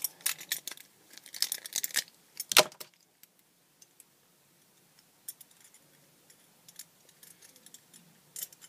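Small plastic and metal Beyblade parts clicking and rattling in the hands while the top's tip mode is changed with a tool. There is a quick run of clicks in the first three seconds, the sharpest about two and a half seconds in, then a pause and fainter scattered ticks.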